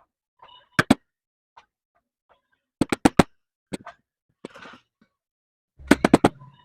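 Sharp hard knocks in quick groups: a pair, then four in fast succession, a single, and a fast cluster with a duller thud near the end.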